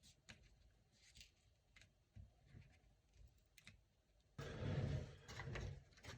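Near silence with a few faint clicks, then about four seconds in a short stretch of rustling, knocking handling noise as the open laptop and its parts are handled.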